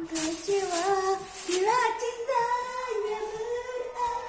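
A high-pitched voice singing a melody in long held notes that slide up and down between pitches.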